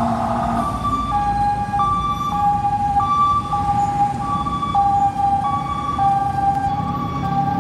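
Emergency vehicle siren passing close in traffic. It switches from a rapid warble to an alternating two-tone hi-lo about half a second in, over a low rumble of road traffic.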